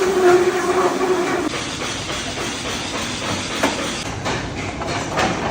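Box-making factory machinery running, with a steady hum that stops about a second and a half in, then a hissing clatter with scattered sharp clicks.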